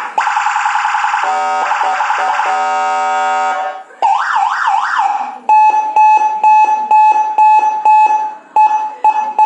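Electronic siren module driving a Whelen-style siren speaker, stepping through its tones: a steady high tone, then a stepped multi-tone pattern, then fast rising yelp sweeps about four seconds in, then a beeping tone pulsing about three times a second.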